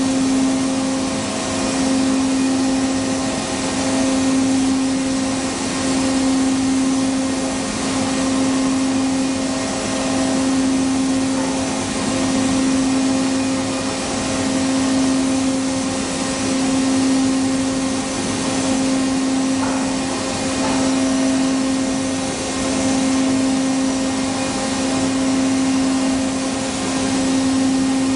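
HOMAG CNC router running: a steady machine hum over a rushing, air-like noise, with a strong low tone that swells and fades about every two seconds.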